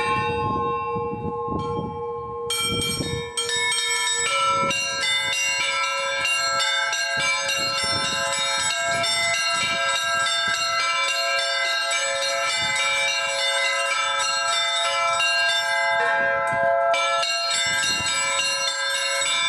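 Orthodox church bells rung by hand in the belfry. One bell rings alone at first, higher small bells join a couple of seconds in, and from about four seconds a full peal of many bells chimes rapidly and without a break.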